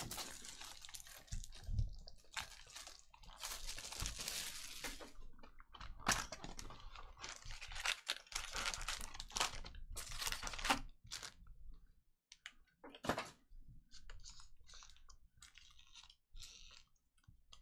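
A cardboard trading-card hobby box being opened and its wrapped card packs crinkling and rustling as they are lifted out and stacked, in irregular bursts of handling noise. The bursts are heavier for the first ten seconds or so, then softer and sparser.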